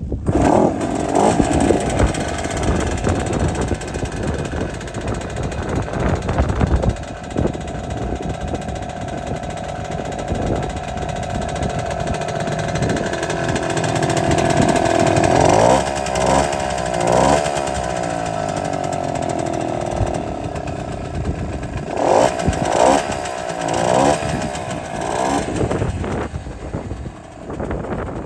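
Gitane Champion Super Veloce 50cc two-stroke moped engine running, revved up and down a few times in the middle and again towards the end.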